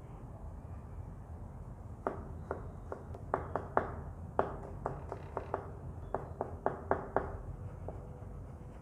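Irregular sharp knocks and taps of kitchen work, about fifteen in a cluster from about two seconds in, like a knife and utensils striking a counter or cutting board, over a steady low hum.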